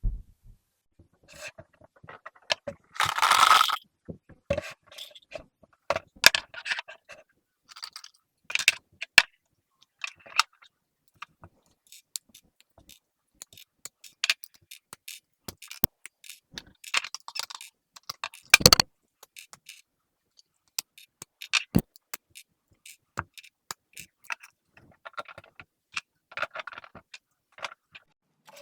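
Plastic Lego bricks and parts being handled during a rebuild: irregular clicks, rattles and scrapes, with a longer scrape a few seconds in and one loud sharp clack about two thirds of the way through.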